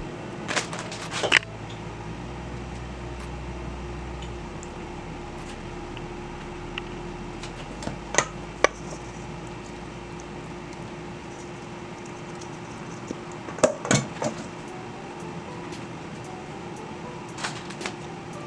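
Kitchen room tone with a steady low hum, and a few light clicks and knocks of utensils and cookware, loudest in a short cluster about two-thirds of the way through, as shredded cheese is sprinkled into a cast iron skillet and mac and cheese is poured in.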